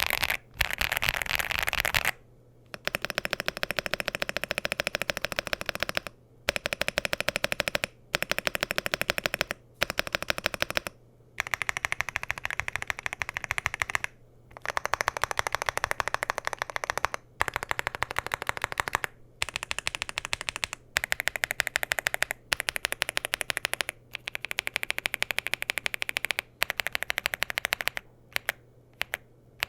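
Fast typing on a Leobog HI75C Pro mechanical keyboard with Leobog ICE Vein switches, PBT double-shot keycaps, an FR4 plate and a gasket-mounted aluminum case. The keystrokes come in rapid runs of a few seconds with short breaks between them, and thin out to a few single presses near the end.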